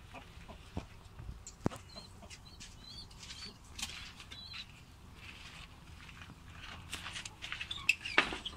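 Pigeon and coop sounds: scattered light knocks and a few faint high bird chirps, then a burst of wing flapping and clattering about eight seconds in as the pigeon is put back into its wooden pen, the loudest part.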